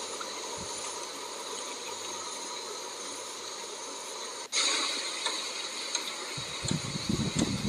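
Steady outdoor hiss carrying several high, unchanging tones. It breaks off abruptly about four and a half seconds in and comes back louder, and irregular low rumbling joins about six seconds in.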